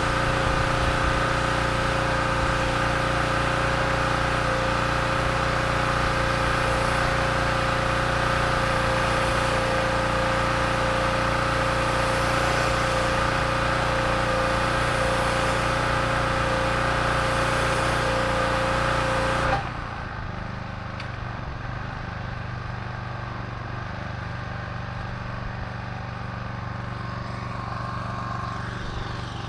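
Pressure washer running steadily while its wand sprays water onto the concrete driveway: a constant motor hum with a hiss of spray. About two-thirds of the way through the sound drops suddenly, the hiss goes, and a quieter, duller hum carries on.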